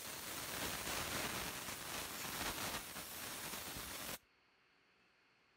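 Can of compressed air spraying a steady hiss into an opened computer mouse, blowing dust out from around the buttons and board; the hiss cuts off abruptly about four seconds in.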